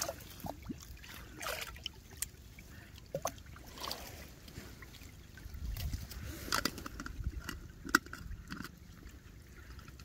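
A drinking bottle dipped into a small, shallow stream and filled, with water sloshing and gurgling into it, followed by scattered small knocks and clicks as the bottle is lifted out and its cap handled.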